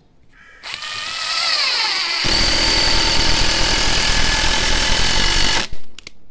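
Cordless impact driver with a brushed motor, the Parkside PDSSA 20-Li A1, driving a 3.9 × 80 mm screw into softwood. The motor spins up with a rising whine about a second in. A couple of seconds later the impact mechanism starts hammering as the screw meets resistance, and it stops shortly before the end after a brief final burst.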